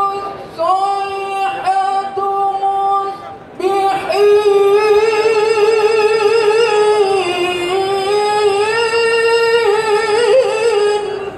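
A male Qur'an reciter chanting through a microphone in a high, melodic voice. Short held phrases come first, then a brief breath about three and a half seconds in, then one long ornamented phrase of about seven seconds that ends just before the close.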